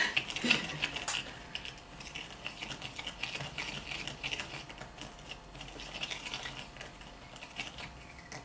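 A wooden orange stick stirring oil and Dead Sea salt scrub in a small glass jar: a quick, irregular clicking and scraping of the stick and salt grains against the glass, thinning out toward the end.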